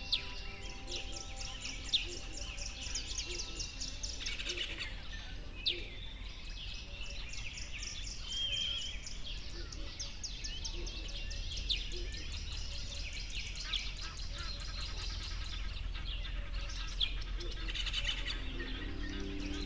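Birds chirping with sharp, quick rising calls over a fast pulsing trill. Faint sustained music notes sound near the start and again near the end.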